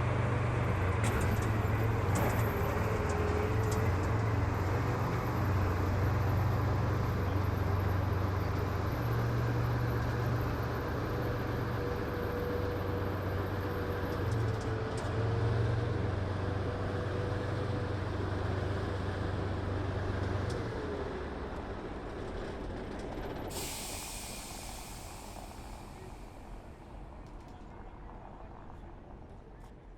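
Engines of heavy military vehicles running as they pass, a low engine note with a steady whine over it. The engine sound ends about two-thirds of the way through and dies away, and a few seconds of loud hiss follow.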